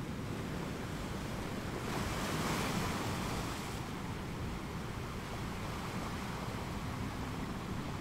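Steady outdoor wind-and-water ambience, a hiss-like wash with no distinct events, swelling louder for about two seconds near the middle.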